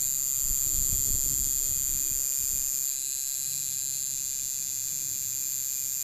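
Coil tattoo machine buzzing steadily as the needle runs a line into skin, with a low rumble during the first half.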